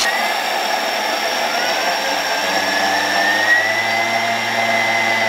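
Thermomix-style blender grinding pieces of caramelised nut praline into powder on the way to a paste, its motor whine slowly rising in pitch.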